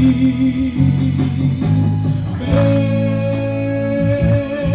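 A song: a singer holds long notes over guitar and bass accompaniment, and a new, higher note starts about halfway through and is held.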